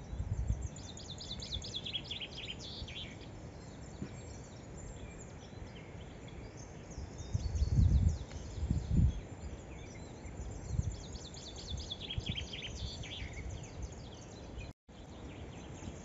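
Small wild birds singing in short bursts of high chirping, with gusts of wind buffeting the microphone in low irregular rumbles, the strongest about eight seconds in.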